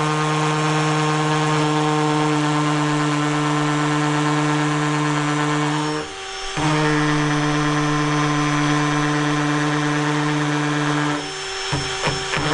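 Cordless hammer drill in hammer mode boring a 6 mm hole into breeze block with a masonry bit, running at a steady pitch. It stops for a moment about halfway, then eases off with a few knocks near the end before running again briefly.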